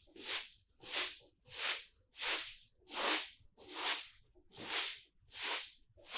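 A broom sweeping in slow, even strokes, a swish about every three-quarters of a second.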